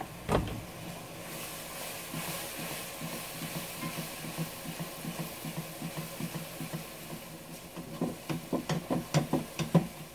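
Thick chili sauce simmering and bubbling in a frying pan, with a spatula stirring through it. One knock just after the start, and a run of quick taps against the pan in the last two seconds.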